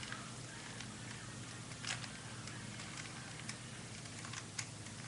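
Plastic Rubik's Cube being twisted by hand: irregular clicks and clacks as its layers turn, the loudest about two seconds in.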